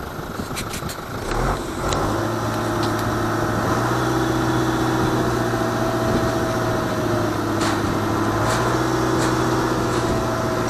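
Tractor engine powering a pumpkin seed harvester, speeding up about a second and a half in and then running at a steady pitch, with a few sharp clicks from the machinery.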